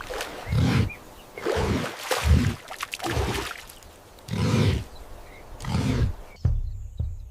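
A large wild animal giving a series of deep, grunting calls, each under a second long, about one a second.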